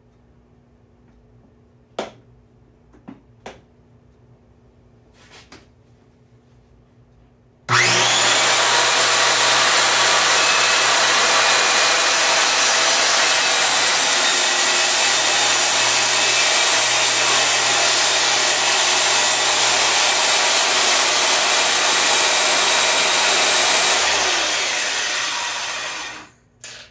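Homemade table saw switched on about 8 seconds in, its motor running with a steady high whine for about 16 seconds while a test cut is made with the crosscut sled, then switched off and spinning down near the end. A few light clicks come before it starts.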